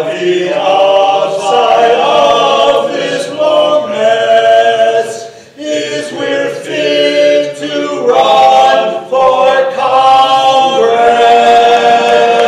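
A group of men singing together, ending on a long held note.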